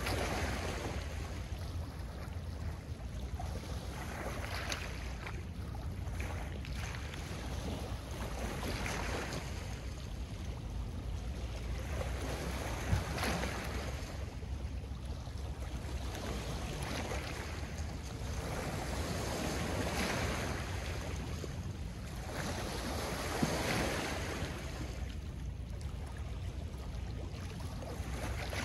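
Small Lake Ontario waves washing onto a pebble shore, a swell of surf every few seconds, over a steady low wind rumble on the microphone.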